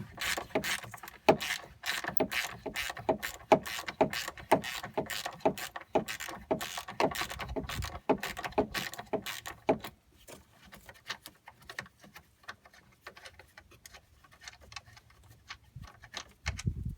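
Ratchet clicking in quick back-and-forth strokes as a Torx 30 screw holding the front grille is undone, about two to three clicks a second. About ten seconds in, the clicks turn much fainter and sparser.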